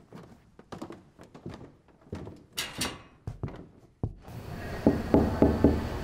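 Four knuckle knocks on a wooden door, evenly spaced and the loudest sounds here, coming about five seconds in. Before them there is a scatter of soft clicks and rustles.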